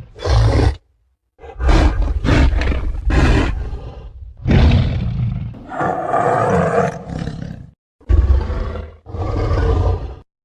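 Krog's ape-man roars, built from King Kong roar sound effects: about five deep, loud bellows and growls played back to back, each cut off sharply with a short silence before the next.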